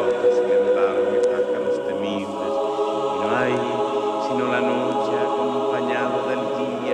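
Music soundtrack: a steady held drone with choir-like voices that slide up and down in pitch over it.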